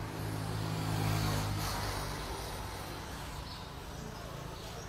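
A motor vehicle's engine hum passing by, swelling to its loudest about a second in and then slowly fading.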